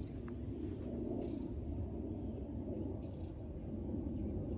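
Quiet golf-course ambience: a low steady rumble under a thin, steady high insect drone, with a few faint bird chirps near the end.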